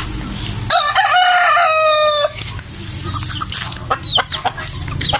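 A native rooster crowing once: a stepped crow about a second and a half long, starting under a second in. Chickens follow with shorter, softer calls.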